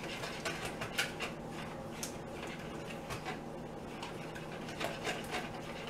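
Small whisk tapping and clicking irregularly against the side of a mixing bowl while beaten eggs are whisked. Melted butter is being drizzled in to temper the eggs, with a faint steady hum underneath.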